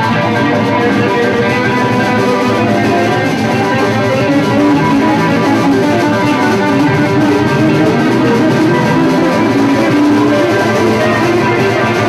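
Live blues band playing, with guitar out front over bass.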